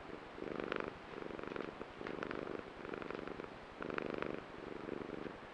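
Maine Coon cat purring close up, in a steady rhythm of swells about half a second long as it breathes in and out.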